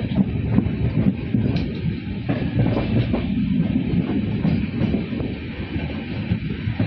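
Passenger train running on the track, heard on board: a steady low rumble with many short knocks of wheels over rail joints.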